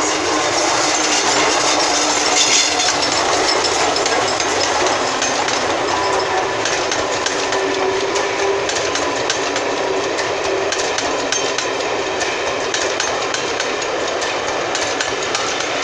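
A loco-hauled passenger train passing close by: the Class 47 diesel and the steam locomotive behind it go by at the start, then the rake of coaches rolls past with a steady rumble, wheels clicking over the rail joints.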